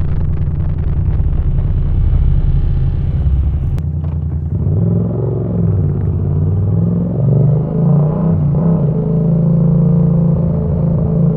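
Yamaha MT-07's parallel-twin engine through a Mivv exhaust with the dB killer removed, idling steadily at first. About four seconds in, after a click, the engine revs up and falls back several times, then settles into steady running near the end.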